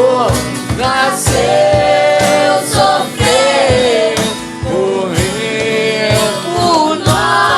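Voices singing a Christian worship song over acoustic guitar and a cajon beat, the sung melody held and gliding continuously with regular low thumps underneath.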